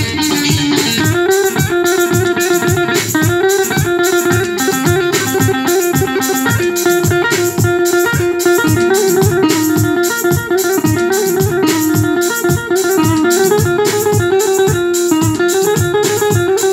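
Yamaha arranger keyboard playing a sampled Turkish buzuq (bağlama) voice: a quick plucked-string melody of many short notes.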